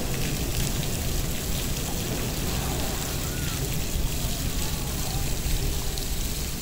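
Steady rushing noise with faint chatter of onlookers in the background.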